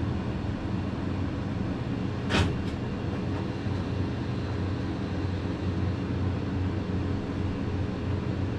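Pellet grill's combustion fan running with a steady low hum while the fire pot is lighting, with one brief sharp noise about two and a half seconds in.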